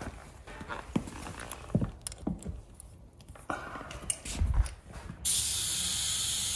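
Clicks and knocks of a tire inflator being fitted to the valve stem, then about five seconds in, compressed air starts hissing steadily into a large off-road tire as it is aired up.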